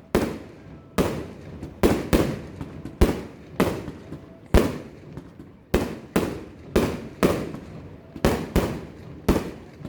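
Fireworks going off: a dozen or more sharp bangs at irregular intervals, each followed by a long echo.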